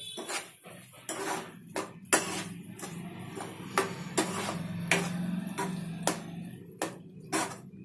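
Spatula stirring sev into thick masala gravy in a frying pan, with irregular knocks and scrapes against the pan.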